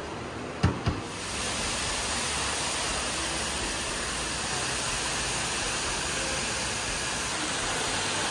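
Two quick thumps, then a steady, even rushing noise starts about a second in and holds.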